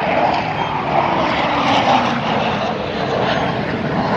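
Two military jet fighters flying past in formation, their jet engines making a steady, loud rushing noise.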